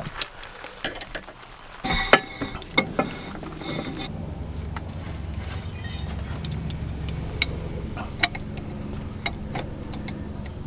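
Zip ties being pulled tight around a tie rod boot: short ratcheting zips among light metallic clinks of tools. A steady low hum comes in about four seconds in and carries on.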